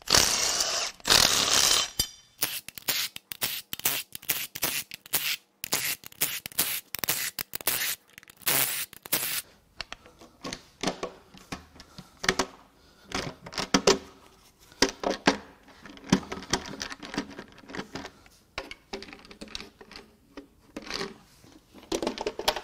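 Milwaukee Fuel cordless ratchet whirring loudly for about two seconds, then in short clicking runs as it spins out valve cover bolts. In the second half, quieter clicks, scrapes and short squeaks as the valve cover is pried and worked loose against its spark plug tube seals.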